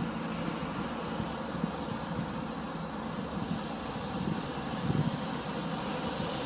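A steady low rumble and hiss of outdoor engine noise, swelling and easing now and then, with no single clear event.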